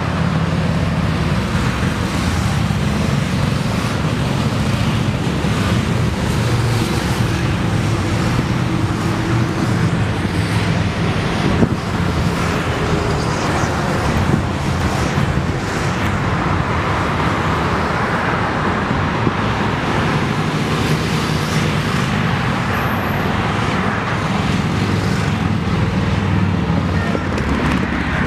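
A procession of Harley-Davidson V-twin motorcycles riding past on the road below, their engines rumbling steadily together and mixed with the noise of road traffic.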